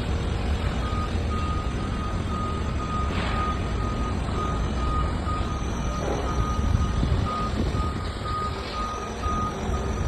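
A heavy vehicle's reversing alarm beeps steadily, about twice a second, starting about a second in, over the low rumble of a diesel engine running.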